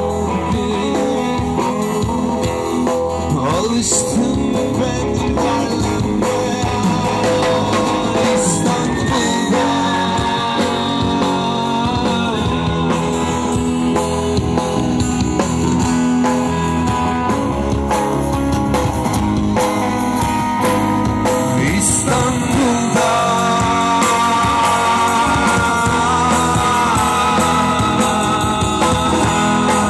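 Rock band playing live through a PA system: guitar-led band music with a male singer's voice.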